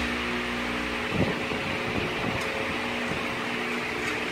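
Steady fan-like hum in the room, with a dull knock about a second in and a few faint taps from hands working on a steel stand frame.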